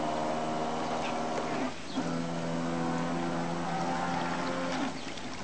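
Model cabin cruiser's 850-size water-cooled electric motor whining steadily under power. It drops out briefly about a second and a half in, comes back at a slightly lower pitch, and cuts back shortly before the end.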